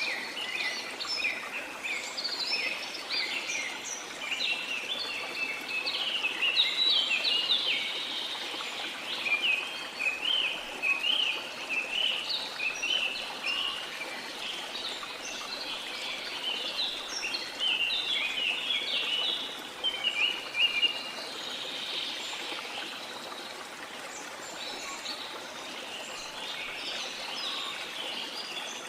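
Rainforest ambience: many birds chirping and calling in quick, overlapping phrases over the steady rush of a flowing river. The birdsong is densest through the first twenty seconds and thins out near the end.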